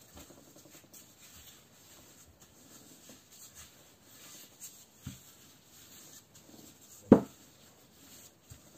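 Wooden rolling pin rolling out puff pastry on a floured table: faint rubbing and scraping with small knocks, and one sharp knock about seven seconds in.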